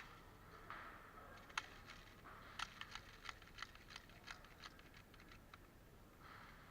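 Faint, irregular sharp clicks and ticks, a dozen or so over a few seconds, against near silence.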